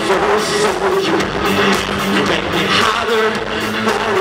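Live electro-rock band music, loud and continuous, with the electric bass being played.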